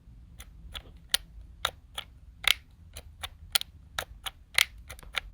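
Sharp plastic clicks from a Makita 18V LXT brushless cordless impact driver's switches, with the motor not running. There are about fifteen clicks, unevenly spaced at roughly three a second and varying in loudness, over faint handling rumble.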